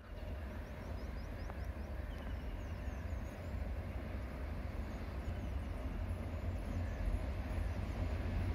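Low steady rumble of an express train hauled by a WAP-7 electric locomotive approaching from far off, growing slowly louder. A bird chirps several times in the first couple of seconds.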